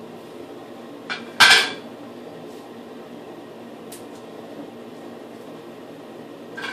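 Hard objects clattering on a bathroom countertop: a light click, then one loud knock about a second and a half in, and another knock near the end, over a steady low hum.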